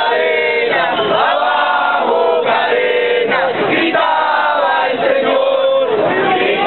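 A crowd of voices chanting together in unison, in short phrases that break and restart every second or so.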